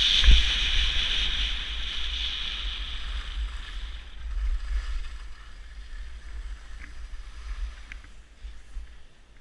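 Wind buffeting a body-worn action camera's microphone over the hiss of skis sliding on packed snow. Both are loud at first and die away after about three seconds as the skier slows down.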